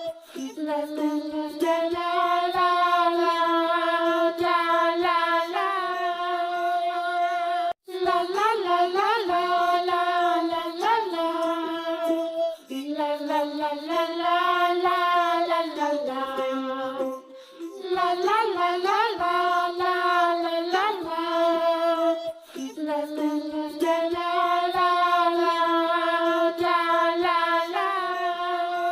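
Background song: a high, child-like singing voice holding long notes in phrases, with short breaks between them.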